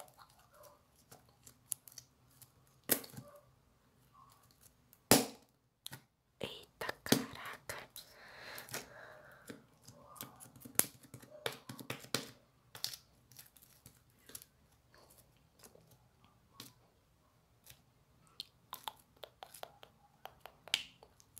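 Yellow slime being pressed and poked with fingers inside a small plastic cup, giving scattered sticky pops and clicks, with a sharp louder pop about five seconds in.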